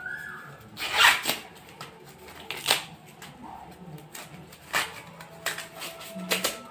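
Fresh green corn husks being torn and stripped off the cob by hand: a series of dry rustling rips, the loudest about a second in.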